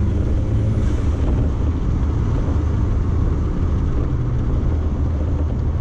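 Cabin sound of a Toyota MR2 on the move: the turbocharged 3S-GTE four-cylinder engine droning steadily under tyre and road noise.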